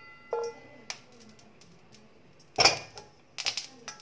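Clatter of a wok and wooden spatula on a gas stove: a short ringing clank early on, one loud clatter about two and a half seconds in, and a few light clicks near the end.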